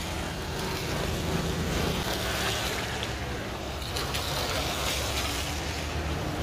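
Road traffic passing close by: a steady low rumble.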